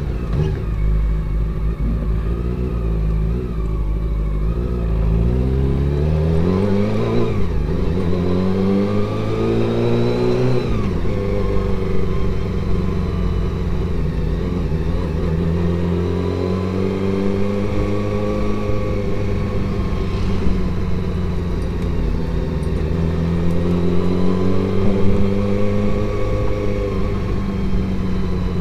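Honda CBR400RR's inline-four engine heard from the rider's helmet while riding. The revs climb steadily for several seconds from about five seconds in, fall away sharply around eleven seconds in, then hold at a steady cruise with a couple of gentle swells.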